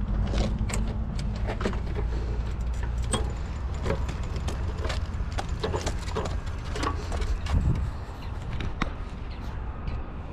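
Rattling and clanking of a small mini tiller being wheeled over pavement: many short knocks and clicks over a steady low rumble.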